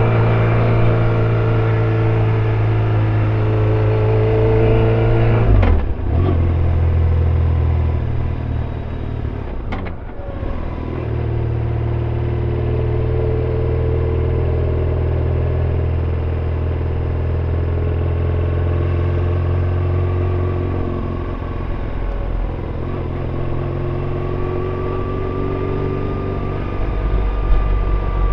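BMW R1150RT's boxer-twin engine running steadily while the motorcycle is ridden. The engine note breaks briefly twice, about six and ten seconds in.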